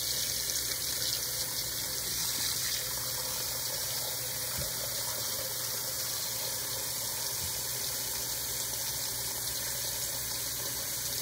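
Kitchen faucet running in a steady stream into a metal pot in a stainless steel sink, filling the pot with water.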